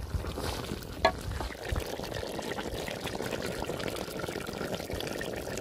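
A steady watery sound from a large aluminium pot of beef and softened tomatoes cooking in their own juices, with a single knock about a second in.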